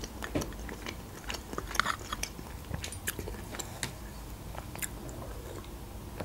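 Close-miked chewing of a chopped cutlet: soft wet mouth clicks and smacks, thinning out after about three seconds.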